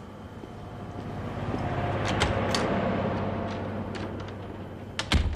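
A motor vehicle passing, with a low hum that swells and then fades, and a sharp knock near the end.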